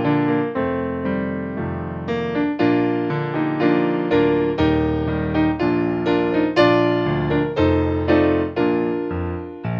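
Background music: a piano or electric piano playing a slow melody over held chords.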